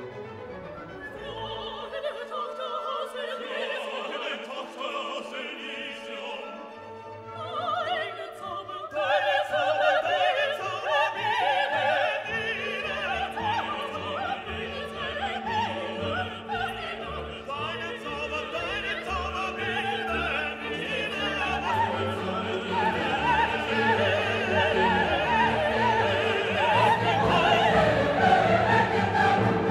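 Background music: an orchestral classical piece with operatic singing. It starts softer and swells about eight seconds in, building louder toward the end.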